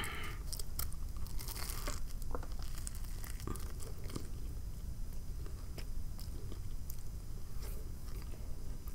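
A bite into a BLT sandwich, then chewing: scattered crunches and small wet mouth clicks.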